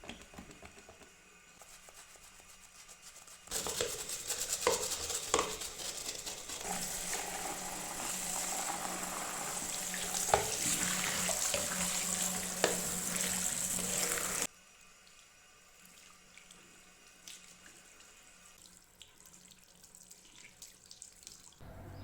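Water running from a sink tap, turned on about three and a half seconds in and shut off suddenly some eleven seconds later, with a few sharp clinks during the flow; faint small knocks before and after.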